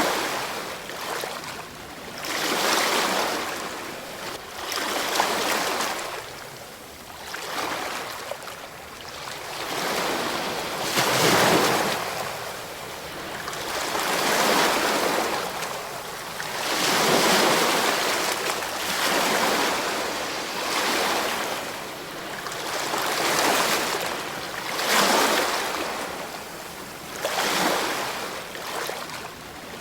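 Ocean waves washing in, swelling and receding every two to three seconds, one after another.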